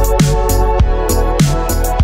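Electronic background music with a steady drum beat, roughly one kick and snare every 0.6 seconds over a held bass line.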